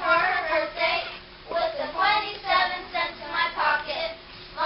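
Children's verse choir: a group of children reciting a poem together in short spoken phrases, the voices at times close to singing.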